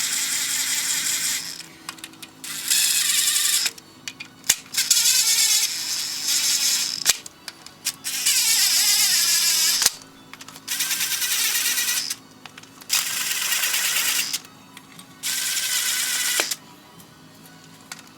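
Cordless power driver run in repeated one-to-two-second bursts with short pauses between, spinning down a row of transfer case housing bolts to snug them before torquing.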